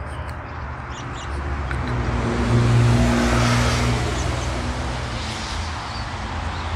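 A motor vehicle passing by: a low engine hum and road rumble that swells to its loudest about three seconds in and then fades back to a steady background rumble.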